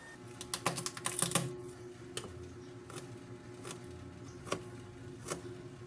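Light, sharp clicks and taps of small hard objects being handled: a quick cluster in the first second and a half, then single taps roughly every 0.8 s, over a faint steady hum.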